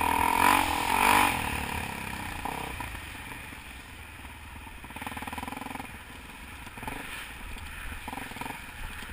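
Dirt bike engine heard from on the bike, revving hard and changing pitch through the first second or so, then running quieter on part throttle with short pick-ups about five and eight seconds in.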